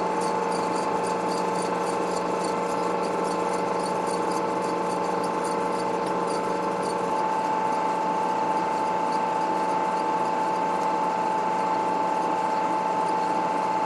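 Chinon SP-300 Super 8 sound projector running with its reels spinning fast in rewind: a steady motor whine over a low hum, with faint rapid ticking in the first half. It cuts off suddenly at the end.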